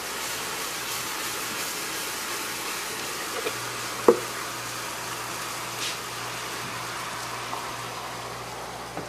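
Pan of browned roux sizzling steadily as chicken broth is poured in from a plastic container and stirred, with a single sharp knock about four seconds in.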